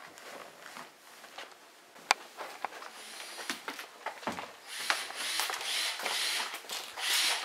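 Footsteps and a few light knocks, then, from about halfway through, rhythmic rasping strokes of a tool working wood, about two a second.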